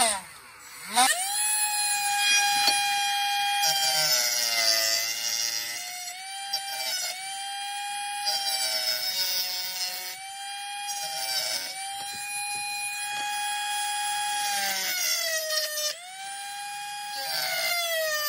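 Milwaukee cordless rotary tool with a small cut-off wheel cutting slits into a chainsaw's metal muffler plate: a high whine that drops in pitch each time the wheel bites into the metal and rises again as it frees up. Near the start it winds down and spins back up about a second in.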